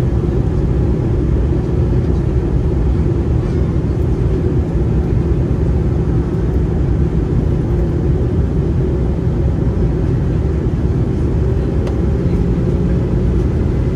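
Steady cabin noise inside an Airbus A320-214 with CFM56 engines in flight: a loud, even low rumble of engines and airflow, with a faint steady hum appearing near the end.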